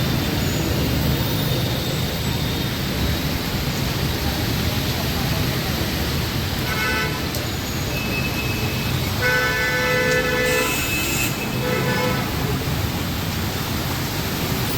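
Steady hiss of rain mixed with city road traffic, broken by vehicle horns honking: a short honk about seven seconds in and longer, repeated honks from about nine to twelve seconds in.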